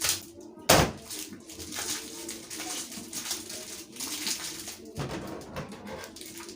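Plastic wrapping on a roll of contact paper being cut and pulled open: rustling and crinkling, with a sharp knock just under a second in.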